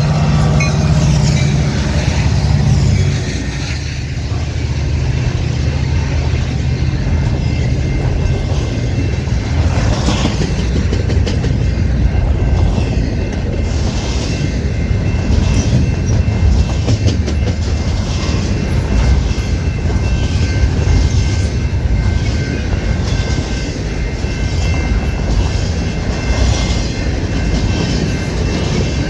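Long freight train of intermodal and autorack cars rolling past, steel wheels clacking over rail joints in irregular runs over a steady rushing rumble. A deep low hum is strongest at the start and eases off after about three seconds.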